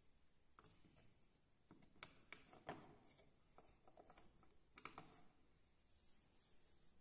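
Faint clicks and scrapes of a screwdriver tip and knife blade poking at the edges of a slit-shaped hole in a PVC pipe, a scattered run of small ticks over the first five seconds, the sharpest about two and a half and five seconds in.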